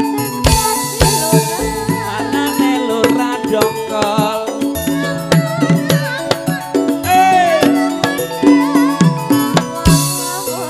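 Campursari band playing, with kendang hand drums beating a steady rhythm under a wavering melodic line. A bright splash comes about half a second in and again near the end.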